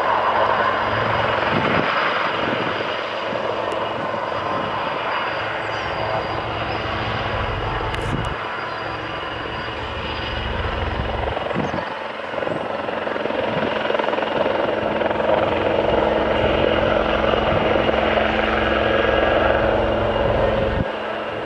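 AgustaWestland AW159 Wildcat helicopter running on the runway and lifting off: its twin turboshaft engines whine steadily over the noise of the main rotor. It grows louder in the second half as it takes off.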